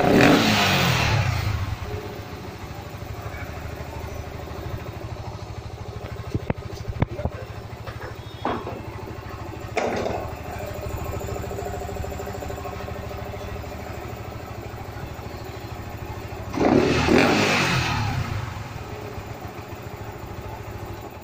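Yamaha R15 V2's 150 cc single-cylinder four-stroke engine idling through an open HP cone air filter fitted in place of the stock airbox. The throttle is blipped hard at the start and again about two thirds of the way through, each rev falling back to a steady idle, with a couple of smaller blips in between.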